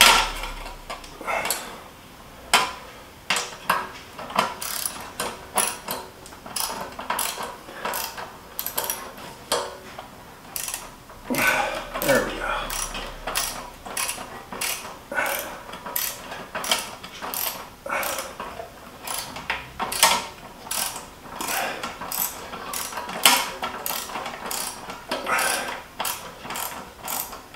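Hand ratchet with a socket clicking in uneven runs of sharp ticks as a long bolt is turned in by hand to fasten a stainless steel license plate bracket.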